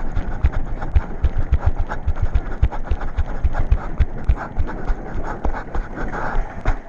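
A person running hard, with quick, regular footfalls and heavy panting close to the microphone, the footfalls thinning out near the end.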